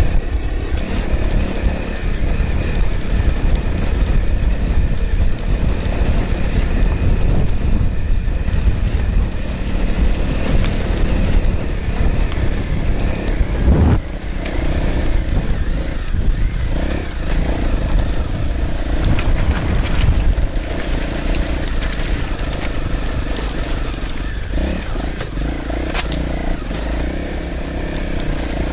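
Trail motorcycle engine running and pulling along a loose, rocky track, its pitch rising and falling with the throttle over a heavy rumble. There is one sharp knock about halfway through, as the bike jolts.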